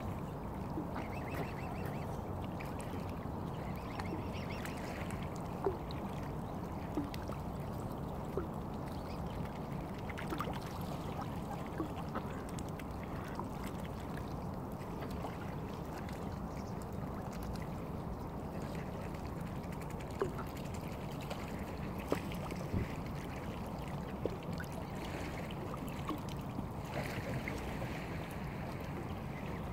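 Mallard ducks quacking now and then over a steady background hiss, with a few short sharp clicks.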